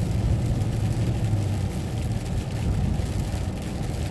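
Semi-truck driving on a wet highway, heard from inside the cab: a steady low drone of engine and tyre noise.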